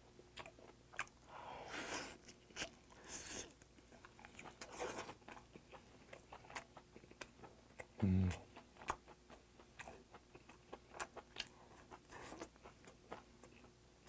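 Close-up chewing of grilled Patagonian toothfish, with many small wet mouth clicks and smacks. About eight seconds in there is a short hummed "mm" through closed lips.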